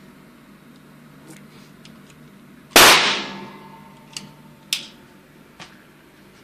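A single pistol shot cracks out about three seconds in, the loudest sound here, its echo dying away over most of a second in the indoor range. About a second later come two sharp metallic clicks as a magazine is pushed into a stainless Beretta pistol, then a fainter click.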